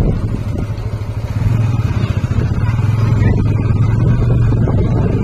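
Motorcycle engine running as the bike is ridden along a road, a steady low engine note that gets louder about a second and a half in.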